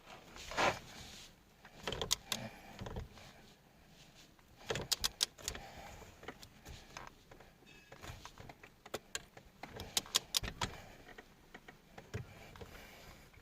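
Scattered clicks and light metallic knocks of a wrench and bolts being worked as a steering-wheel hub adapter is bolted to the column, some clicks coming in quick runs.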